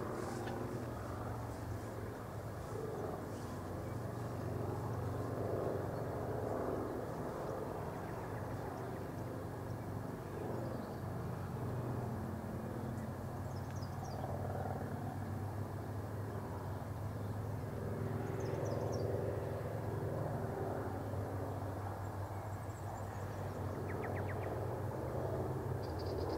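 Outdoor ambience dominated by a steady low motor-like rumble that swells and eases slowly, with a few brief high chirps scattered through it.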